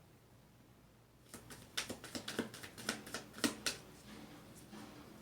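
A deck of tarot cards being shuffled by hand: a run of irregular, sharp card slaps and clicks starting about a second in.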